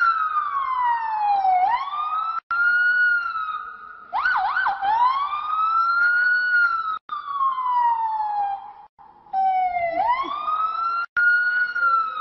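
A boy imitating a police siren with his voice: long rising and falling wails with a few brief breaks, and a quick yelp about four seconds in.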